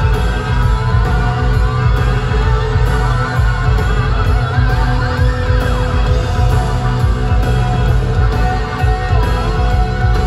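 Live rock band playing loudly through a concert sound system: a heavy, steady bass under sustained guitar lines that slide in pitch.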